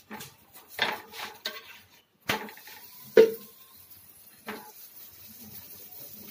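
Metal spoon and utensils clinking and knocking against an iron tawa and containers while a roti cooks on it: a string of sharp clinks, the loudest a little past three seconds in, over a faint steady sizzle.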